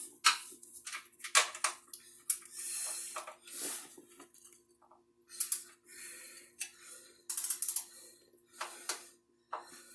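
Hand tools on metal: irregular clicks, clinks and short scrapes as a socket and ratchet are worked on a bolt with a socket that doesn't fit. A steady low hum runs underneath.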